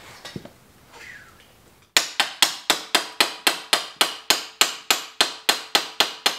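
Rapid, even hammer blows on a small sheet-metal patch piece, about four a second, each strike short and sharp with a light metallic ring. They begin about two seconds in, after a quiet start.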